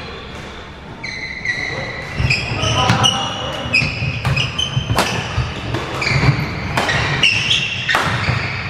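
Badminton rally: rubber-soled court shoes squeak in short high chirps on the wooden floor as the players lunge and turn, and rackets strike the shuttlecock several times with sharp cracks.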